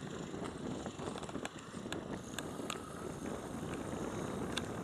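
Distant Boeing 747-400 with four Pratt & Whitney PW4056 turbofans taxiing at low thrust: a steady low rumble mixed with wind on the microphone. A few faint clicks are heard in the middle and near the end.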